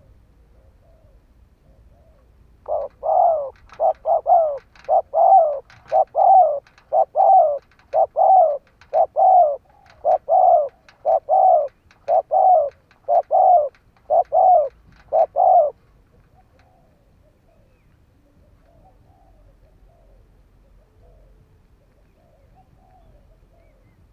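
Spotted dove cooing: a run of short, grouped coos repeated for about thirteen seconds, then stopping, with fainter coos afterwards.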